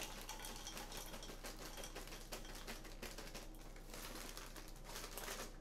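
Faint, irregular patter of small clicks and rattles from a plastic mini food processor being handled and put together.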